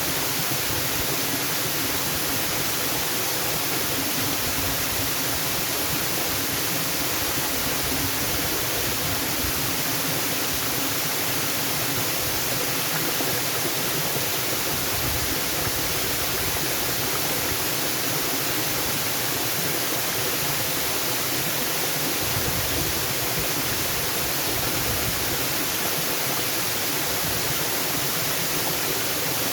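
Waterfall rushing steadily: an even, unbroken hiss of falling water with no changes or separate events.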